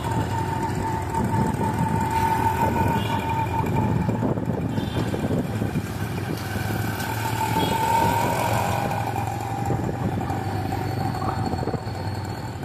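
Street traffic: auto-rickshaw and motorbike engines running close by, with a steady low engine drone and a whine that swells twice.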